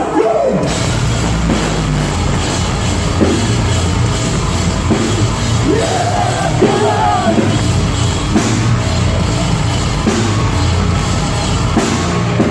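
Metalcore band playing live at full volume: drum kit and heavy guitars and bass, with a singing voice coming in over it around the middle.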